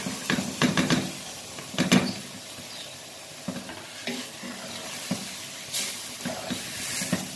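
Boiled rawan beans tipped from a plastic bowl into a steel pot of sizzling masala, with a loud clattering rush of beans in the first two seconds. A spatula then stirs them through the frying oil, with scattered scrapes over a steady sizzle.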